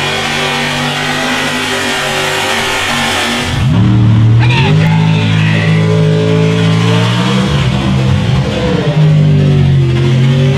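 Mega truck engines running at high revs through a mud pit: first a steady full-throttle run with a hiss of flying mud. After a cut about three and a half seconds in, another engine revs up sharply and then rises and falls as the truck works through the ruts.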